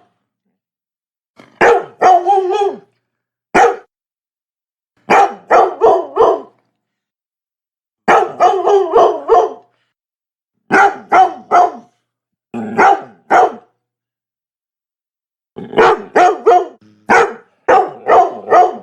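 Labrador barking in quick runs of three to five barks, the runs a second or two apart with dead silence between.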